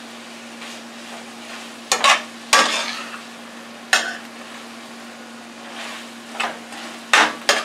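Metal utensil scraping and clinking against a frying pan as steak, peppers and onions are stirred into a thick gravy paste, over a steady low sizzle. The sharp scrapes come in bunches: two about two seconds in, one around four seconds, and several near the end.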